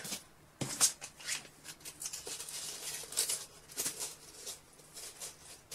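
Small cosmetic packages and sachets being handled: irregular rustling and crinkling, with a sharp knock a little under a second in and a few lighter taps.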